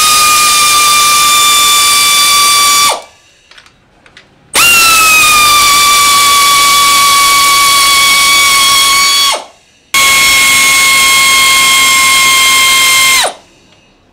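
Power ratchet running in three long runs, each a steady high whine that dips slightly in pitch as it starts, backing out an already-loosened engine-mount bolt on a Harley-Davidson Sportster 1200.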